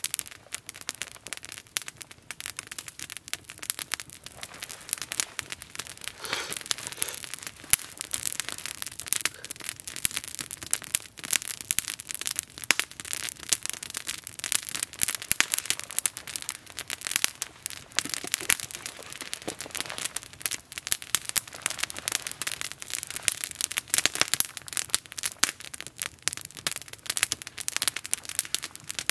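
Small wood campfire crackling, with frequent sharp pops and snaps throughout.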